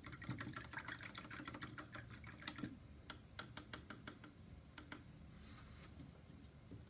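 A quick run of light clicks and taps, several a second for about four seconds, then a short soft rustle near the end: paintbrushes being handled and knocked together while brushes are switched.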